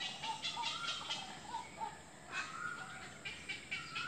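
Birds calling: rapid short chirps repeating several times a second, mixed with short pitched notes and a couple of longer whistled notes about halfway through and near the end.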